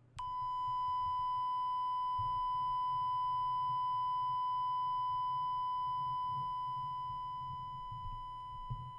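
A long, steady high-pitched test beep played from a smartphone's speaker, starting just after the beginning. It holds level for several seconds, then grows a little quieter and wavers near the end as the super-cardioid condenser mic is turned away from it.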